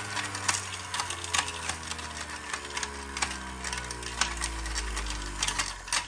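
Breville juicer motor running while ice is pushed into the spinning cutting disc. The ice crunches and rattles with irregular sharp clicks, and the motor hum slowly falls in pitch as it grinds the ice.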